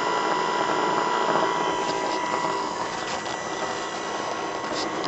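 Small 12-volt DC-to-AC inverter running while it powers an LED bulb, giving a steady whine over a hum.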